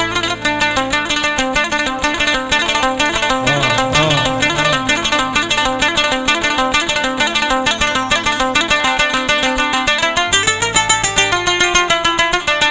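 Arabic instrumental music led by a fast plucked-string melody of quick repeated notes, with no singing.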